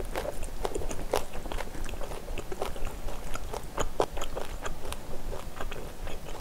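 Close-miked chewing of a mouthful of spicy stir-fried pork and rice: many short, irregular wet clicks and smacks.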